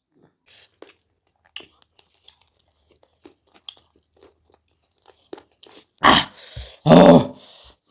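A person chewing and crunching food close to the microphone: a scatter of small soft crunches, then louder crunching about six seconds in, with a short vocal sound near the end.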